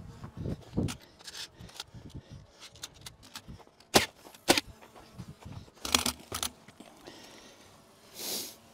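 A few sharp knocks and clicks: two loud ones about half a second apart around four seconds in, a quicker cluster around six seconds, and a short hiss near the end.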